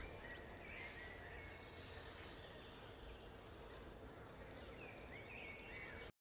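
Faint outdoor ambience with scattered short bird chirps and whistles over a steady background hiss; it cuts off suddenly near the end.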